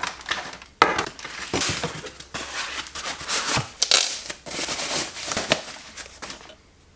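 Plastic parts bags and cardboard packaging crinkling and rustling in irregular bursts as a car stereo head unit is unpacked, dying away near the end.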